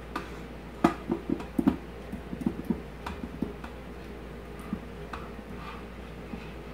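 A spatula knocking and scraping against a stainless steel mixing bowl as meatballs in a thick soup mixture are tipped out into an Instant Pot, making irregular taps, most of them in the first three seconds.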